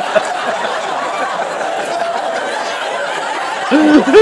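Laughter: a man's rhythmic chuckling tails off, a steady wash of audience laughter fills the middle, and about three and a half seconds in a man breaks into loud laughter again.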